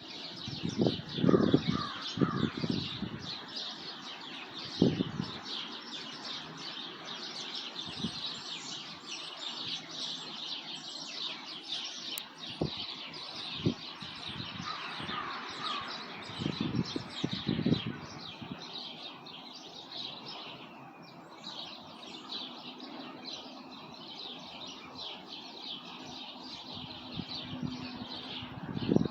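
Many birds chirping and singing at once, a dense, continuous chorus of quick high chirps. A few short, louder low bursts break in near the start, in the middle and at the end.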